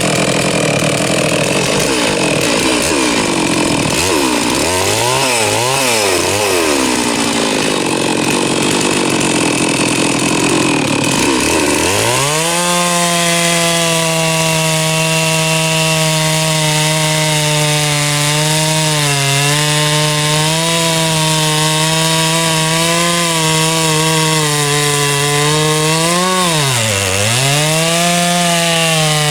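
Large chainsaw running at full throttle while cutting through a big log. For about the first twelve seconds the engine note is lower and wavers up and down under load; it then climbs to a high, steady pitch, dipping sharply once near the end before recovering.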